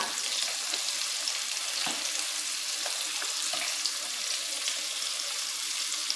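Onion and red bell pepper slices sizzling steadily in oil in a pot over low heat, with small crackles and a light knock about two seconds in.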